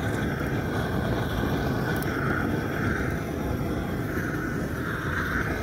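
Hose-fed gas torch burning with a steady rushing flame, singeing the fur off a mongoose carcass.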